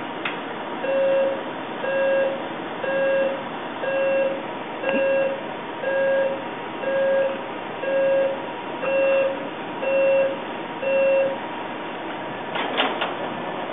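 Electronic beeper sounding eleven evenly spaced beeps, about one a second, each a steady mid-pitched tone, over a steady background hiss. Two or three sharp clicks follow near the end.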